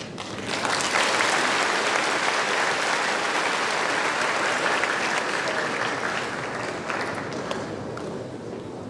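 A hall audience applauding. The clapping swells within the first second, holds steady for several seconds, then thins out and tapers off toward the end.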